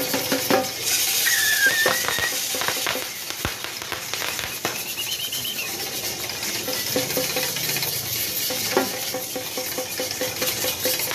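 Crowd noise at an open-air bull race: a continuous hiss of many people with short shrill whistle calls, one about a second and a half in and a rising-and-falling one about five seconds in.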